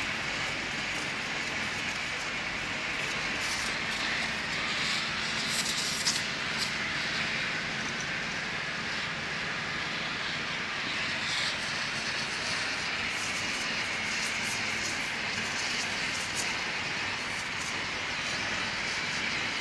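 Gas brazing torch hissing steadily while joining air-conditioner copper pipes, with a steady low hum underneath.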